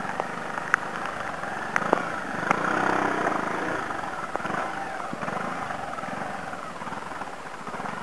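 Motorcycle engine running at low speed while the bike is ridden over a rough dirt trail, with a few sharp knocks and a louder stretch about three seconds in.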